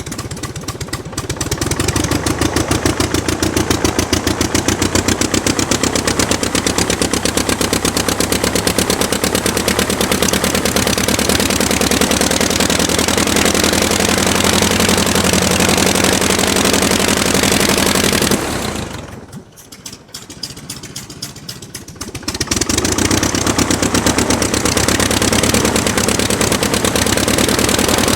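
Aircraft engine running steadily with a rapid, even clatter of firing strokes. About two-thirds of the way through the engine sound drops sharply for about four seconds, then comes back up to full.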